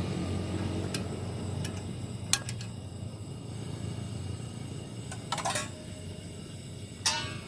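Metal camp cookware being handled: a few sharp clinks, the loudest about two seconds in, then two short metallic rattles near the middle and the end, over a steady low background hum.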